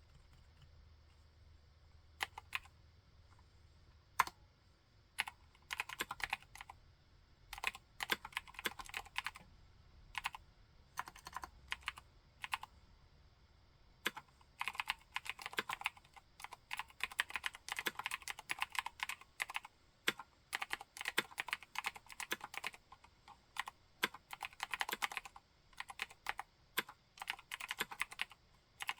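Typing on a 60% mechanical keyboard with Cherry MX White switches and MT3-profile keycaps. A few single keystrokes come about two seconds in, then bursts of typing that run almost without pause through the second half.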